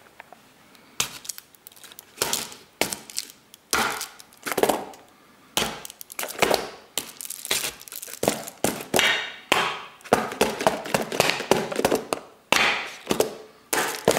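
A rapid, irregular series of sharp cracks or knocks, about one or two a second, each with a short ringing tail, starting about a second in.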